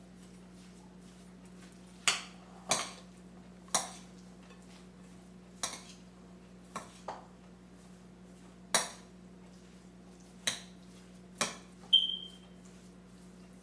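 A spoon clinking against a mixing bowl about ten times at irregular intervals as a mayonnaise-dressed broccoli salad is stirred; the last clink, near the end, rings briefly. A faint steady hum underneath.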